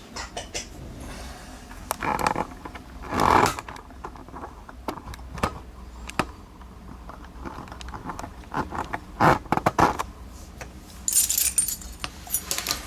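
Small metal clicks, taps and brief scrapes and rattles from a Schlage Everest lock core and locksmith tools being handled and set up for disassembly.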